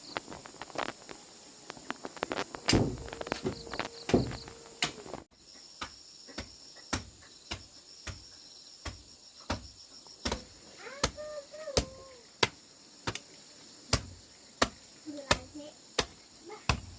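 Repeated sharp knocks at an even pace, about three every two seconds, over steady high insect chirring.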